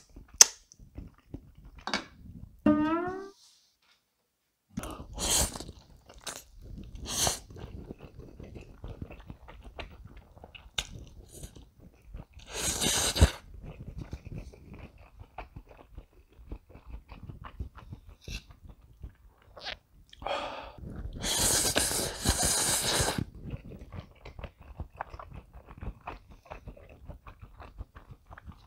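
Close-miked eating of creamy spicy instant noodles: wet chewing and smacking with loud slurps, the longest about two seconds, starting a little after the middle. Near the start comes a sucking smack on a spoon as the sauce is licked off it.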